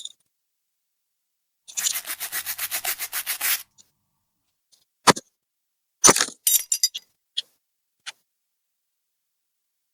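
Quick rubbing or scrubbing strokes on a hard surface, about eight a second for two seconds. Then a few sharp clicks and cracks from laptop parts being worked on, the loudest about five and six seconds in.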